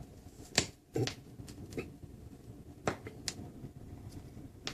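Turntable stylus being set on a vinyl record: a handful of sharp clicks and pops over a low hiss and hum of surface noise, with the sound cutting out briefly just under a second in.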